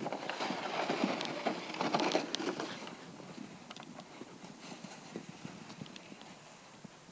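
Crunching and scuffing in snow, a dense run of small crackles that is loudest for the first three seconds and then fades.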